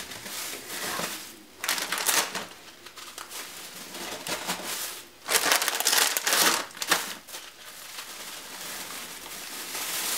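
Thin plastic bag crinkling as sugar biscuits are snapped by hand and dropped into it, with crisp cracking and rustling. It is loudest about two seconds in and again from about five to seven seconds in.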